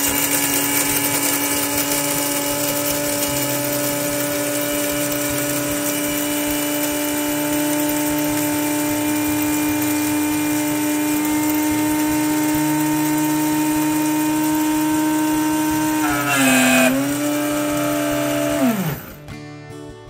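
The Siroca Café-bako coffee maker's built-in mill grinding two cups' worth of coffee beans to a medium-fine grind. Its motor runs at a loud, steady whine, wavers briefly about sixteen seconds in, then winds down with a falling pitch just before the end as the grinding finishes.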